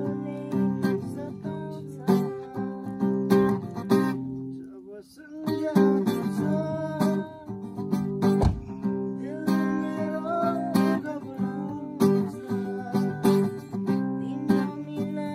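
Acoustic guitar strummed in chords as song accompaniment, with a brief thinning of the strumming about five seconds in.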